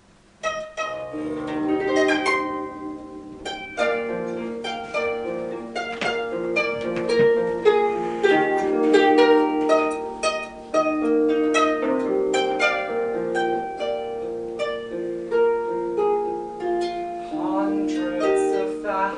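A plucked string instrument playing a steady run of picked notes that ring over each other. It starts about half a second in.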